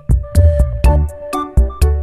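Background music with a steady beat, bass and melody notes.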